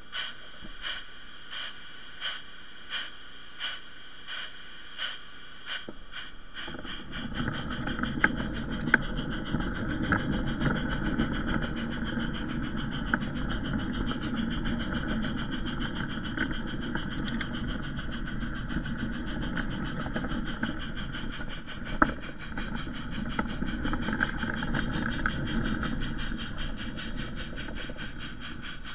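Garden railway train running along its track with the microphone aboard: a steady motor whine with regular clicks about every 0.7 seconds, then from about seven seconds in a louder rolling rumble with a few sharp knocks.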